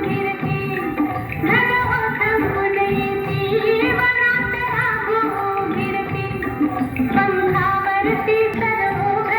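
Song with a female singing voice over Indian-style instrumental accompaniment.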